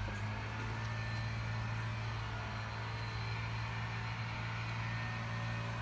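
A steady low mechanical hum from a running motor, holding one pitch and level throughout.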